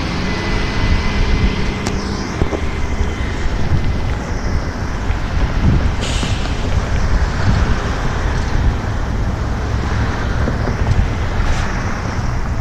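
Steady, loud low rumble of outdoor background noise, with brief rushing swells about two, six and eleven seconds in.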